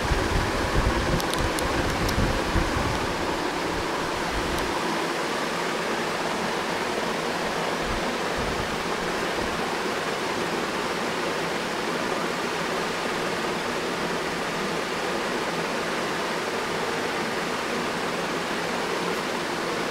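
Steady rushing noise with no clear pitch, with a few low bumps in the first three seconds.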